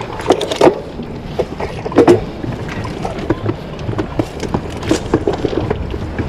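Mountain bike rolling down a steep rock slab, with the tyres and bike clattering in irregular knocks over the rock, loudest just after the start and about two seconds in, over a steady rush of wind on the microphone.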